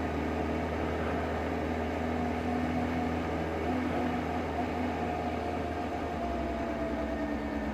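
Kawasaki Z H2 SE's supercharged inline-four engine running at low road speed: a steady hum with a faint held whine that dips slightly in pitch about five seconds in, over a bed of rushing wind and road noise.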